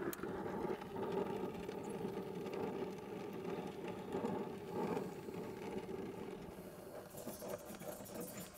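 Oxy-acetylene torch flame running steadily on a brazed copper refrigerant joint as it is heated, with a brighter hiss coming in near the end.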